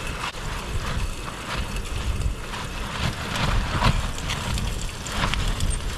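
Gale-force wind buffeting the tent and rumbling on the microphone, over burgers frying in a pan on a Trangia spirit stove, with several sharp crackles of spitting fat.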